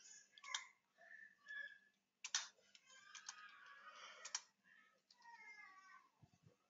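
Faint computer keyboard typing: a few scattered keystrokes as a command is typed out.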